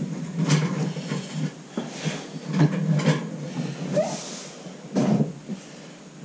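Sports cards being handled and sorted by hand: rustling with irregular clicks and knocks, about five sharper ones spread through.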